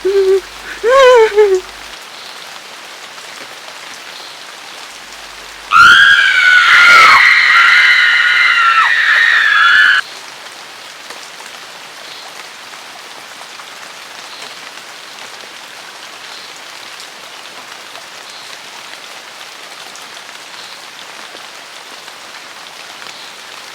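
Steady heavy rain falling on a hard surface. About six seconds in, a loud, high-pitched scream wavers for about four seconds and then cuts off suddenly. There is a brief vocal sound near the start.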